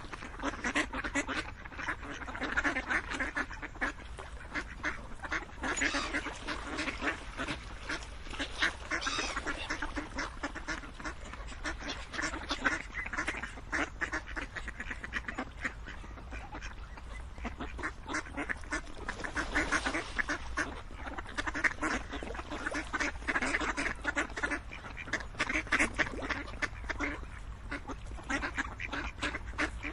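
A flock of ducks quacking: many short calls overlap without pause, with louder bunches every few seconds.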